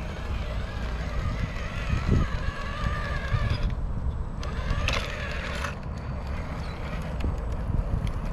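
Electric drive motor and gear whine of an RC rock crawler (Vanquish VS410) climbing a steep rock face, the pitch wavering up and down with the throttle. It stops about three and a half seconds in, then comes back briefly and rising about a second later, over a steady low rumble.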